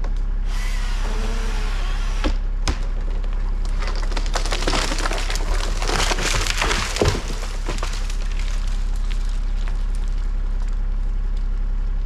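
Poplar trunk cracking and splintering as the tree gives way and falls: a run of sharp snaps that starts about two seconds in and is thickest in the middle, over a steady low hum.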